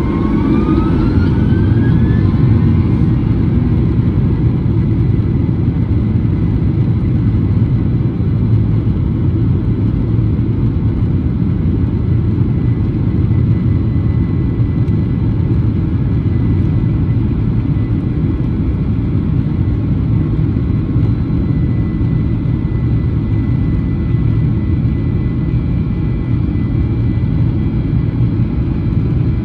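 Inside the cabin of a Boeing 737-900ER taxiing: a steady low rumble, with the CFM56-7B engines' whine rising in pitch over the first couple of seconds as thrust comes up, then holding steady.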